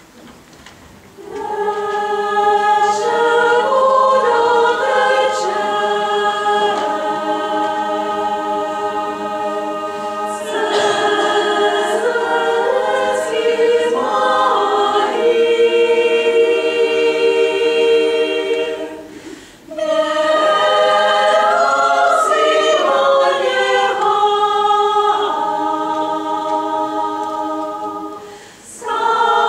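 Women's choir singing a Czech folk song a cappella in several-part harmony, coming in about a second in, with two short breaks between phrases.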